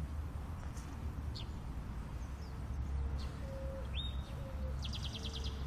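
Small birds chirping: a few short, high calls spread out, then a quick trill of about seven notes near the end, over a steady low background rumble.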